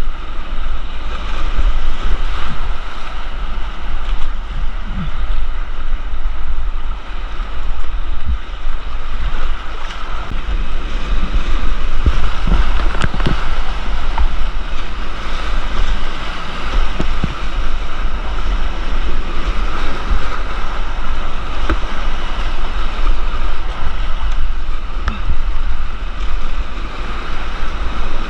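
Whitewater creek rushing and churning, with a heavy low rumble of wind and water buffeting the microphone and short knocks scattered through it.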